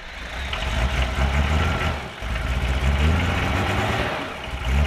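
Toyota HJ47 Troopcarrier's 2H straight-six diesel idling just after starting, its low rumble swelling and dipping a couple of times.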